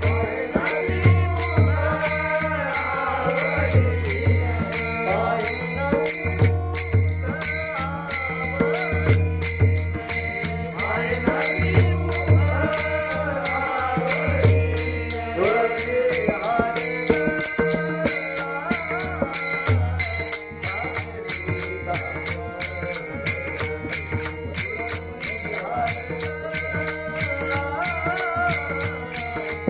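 Varkari bhajan singing of an abhang: a solo voice singing a wavering devotional melody over a sustained drone, with small hand cymbals keeping a fast, even beat and a low drum stroke about every two seconds.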